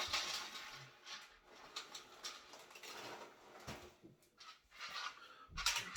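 An opened plastic cereal bag rustling and crinkling as it is handled, with light clicks, and a louder rustle near the end.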